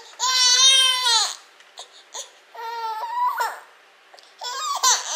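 Infant crying in protest at having her finished bottle taken away: one long high wail lasting about a second, then shorter whimpering cries, and a fresh outburst near the end.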